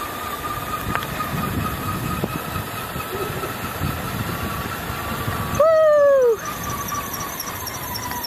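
Wind buffeting the microphone and bicycle tyres rolling on asphalt while coasting downhill, with a faint steady whine. About five and a half seconds in, a loud falling hoot-like squeal cuts in for under a second.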